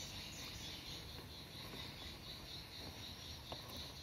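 Steady, high-pitched insect chirping, with faint rustling of hands handling wires and one short click about three and a half seconds in.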